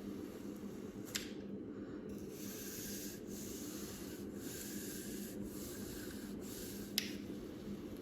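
Kinetic sand being squeezed and scraped, soft rubbing strokes about once a second, with two short sharp clicks, one about a second in and one near the end.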